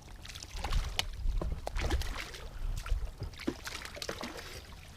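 Water splashing and trickling around a small fishing boat, with scattered sharp clicks and knocks.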